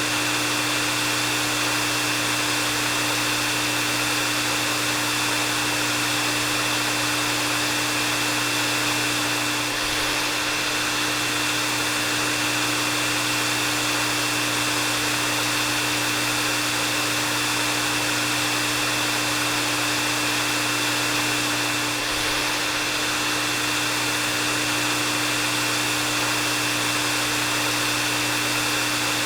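Hair dryer running steadily: a constant rush of air with a steady low motor hum and a high whine, dipping very slightly twice.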